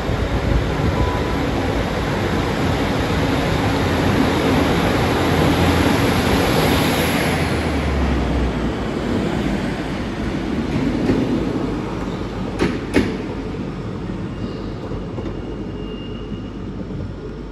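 Class 150 Sprinter diesel multiple unit pulling out and passing close by, its underfloor diesel engines growing louder as it draws alongside and then fading as it moves off. Two sharp clanks come in quick succession about three quarters of the way through.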